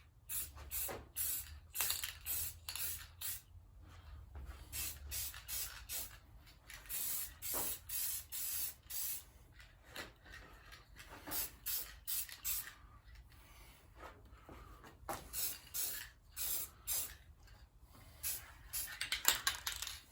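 Aerosol can of primer sprayed in many short bursts, each hiss lasting a fraction of a second with brief gaps between, as a thick coat of primer goes on.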